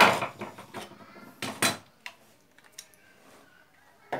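Metal parts clattering on a wooden workbench as a stripped angle-grinder gear head is handled and set down: a loud clank at the start, two more knocks about a second and a half in, a few light clicks, and another knock near the end.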